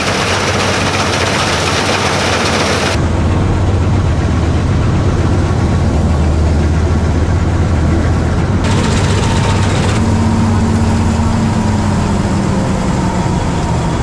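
Combine harvester running while harvesting wheat: a steady low engine hum under heavy rattling machinery noise. The sound changes abruptly about three seconds in, losing much of its hiss, and a steady tone joins it about ten seconds in.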